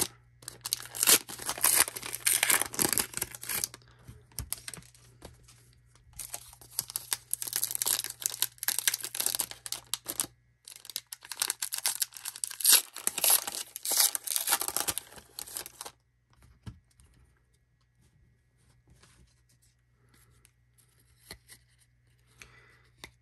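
Gypsy Queen baseball card pack wrappers being torn open and crinkled, in three stretches of crackling over about fifteen seconds. After that it is near quiet, with a few faint ticks.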